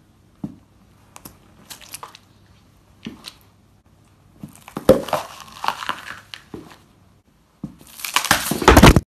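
A shoe stamping on and crushing vegetables such as a tomato and a red bell pepper on a tile floor: scattered small snaps, then a burst of crunching and cracking about five seconds in, and the loudest, longest crackling crush near the end.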